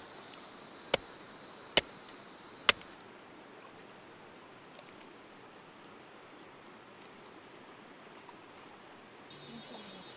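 Steady high-pitched drone of rainforest insects, with four sharp clicks about once a second in the first three seconds.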